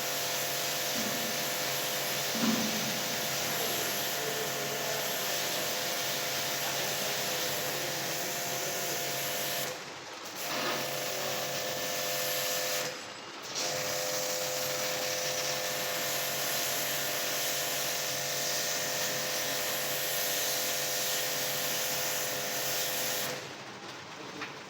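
Steady hissing from a running machine, with a faint steady hum. It cuts out briefly twice, about ten and thirteen seconds in, and stops near the end.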